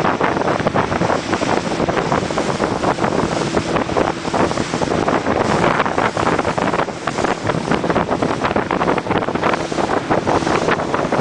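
Heavy wind buffeting the microphone as a small open motorboat runs across the water, a loud, steady rush broken by constant quick gusts, with the boat's motor and water noise underneath.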